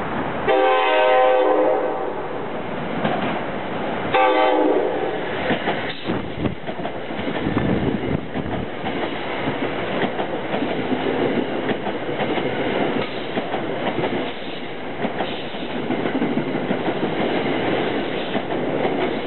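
An NJ Transit Comet V cab car's horn gives a long blast about half a second in and a shorter sounding about four seconds in. Then the all-Comet coaches rush past at speed with a steady rumble and regular clicks of the wheels over rail joints.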